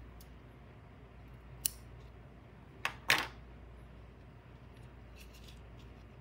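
Metal scissors set down on a wooden tabletop: a faint tick, then two sharp clicks close together about three seconds in, the second the loudest with a short clatter.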